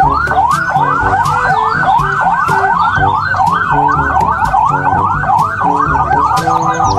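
Police car siren in a fast yelp, its pitch sweeping up and down about three times a second, over background music with a steady beat.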